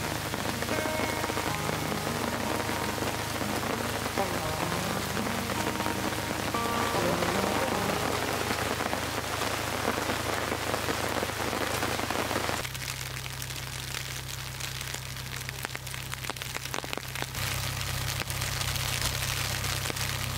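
Steady rain pattering on a tent tarp. About two-thirds of the way in, it changes to a crisper patter of many small sharp ticks as the rain turns to hail.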